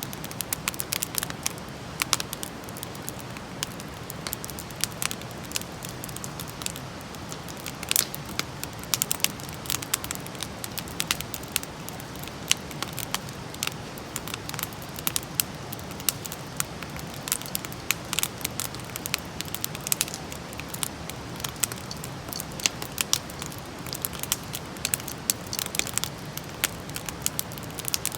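Wood campfire burning and crackling: irregular sharp pops and snaps, several a second, over a steady low rush of the flames.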